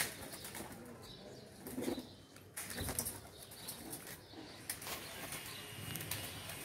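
Domestic pigeons' wings flapping and clattering in short, irregular bursts, fairly faint.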